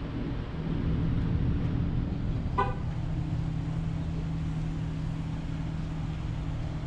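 Steady low hum of a vehicle engine, with a single short car-horn toot about two and a half seconds in.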